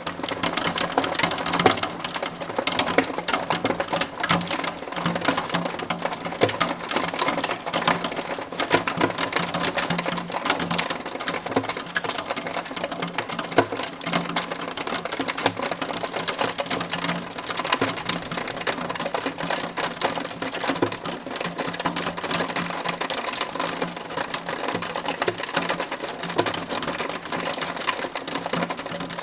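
Hail and rain pelting a window pane: a dense, continuous rattle of countless small hard impacts on the glass.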